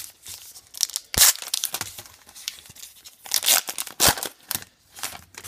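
Foil trading-card pack wrapper being torn open and crinkled by hand, with irregular crackling and sharp rips about a second in and again around four seconds in.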